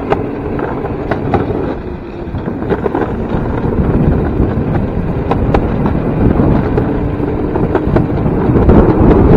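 DIY electric railcart rolling along old rusted track: a steady low rumble of its wheels on the rails with scattered clicks and knocks, and wind on the microphone. It gets louder about four seconds in and again near the end.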